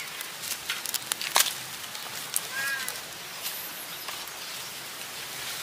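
Dry leaves and bamboo strips burning in an open cooking fire, crackling with sharp snaps in the first second and a half, then a softer, steadier crackle.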